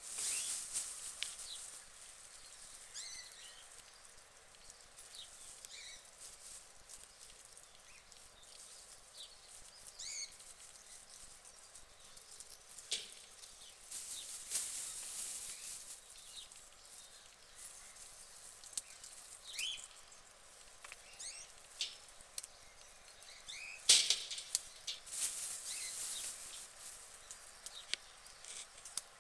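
Guinea pigs chewing lettuce and shuffling through straw and wood shavings: intermittent crisp crunching and rustling, with one sharp knock about five seconds before the end.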